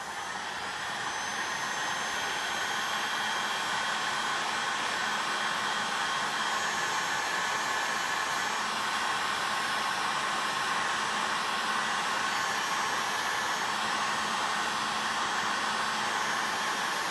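Handheld heat gun blowing steadily, hot air played along the bottom edge of an iPad mini's glass to soften the screen adhesive before prying. It builds up over the first couple of seconds, then holds level, a steady rush of air with faint steady tones in it.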